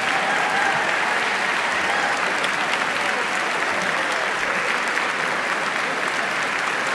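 Concert audience applauding steadily and at full strength after a choir song.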